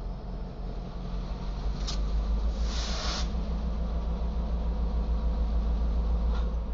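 Diesel switching locomotives running past slowly with a steady low engine rumble that swells about two seconds in. A short click comes just before that, and a brief hiss follows about half a second later.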